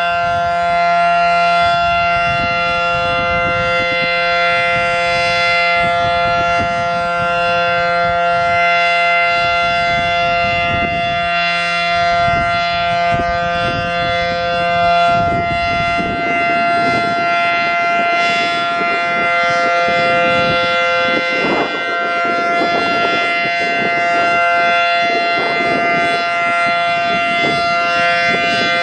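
Federal Signal Model 7T outdoor warning siren, a 9/12-port unit driven by a capacitor-start induction motor, sounding its steady alert tone. The tone is a loud, sustained two-note chord held at constant pitch.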